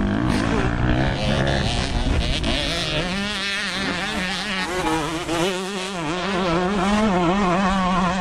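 Motocross dirt bike engines revving, the pitch rising and falling quickly with the throttle over a steadier engine drone.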